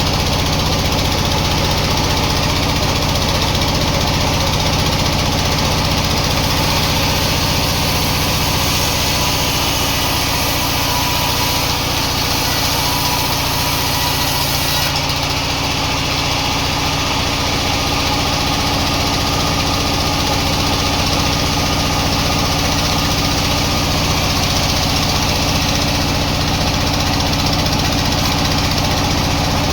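Sawmill machinery running steadily: an even, engine-like hum with a constant level and no starts, stops or changes.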